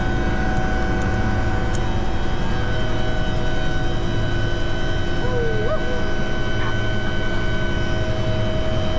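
Helicopter running steadily: a loud, even low rumble with a constant whine of several held tones over it.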